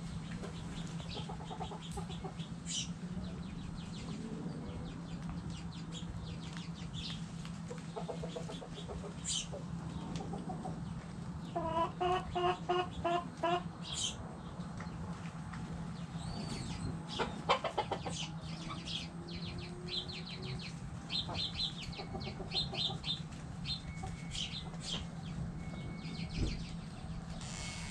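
Backyard hens clucking in a chicken coop, with a quick run of about eight evenly spaced clucks around twelve seconds in and another call a few seconds later. Short high chirps come and go throughout over a steady low hum.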